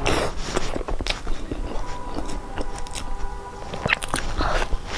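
Close-up mouth sounds of chewing soft bread, with wet clicks and smacks, and another bite into the bun near the end.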